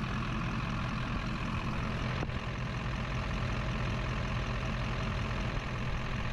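Heavy-duty truck's 6.6 L turbo diesel engine idling steadily.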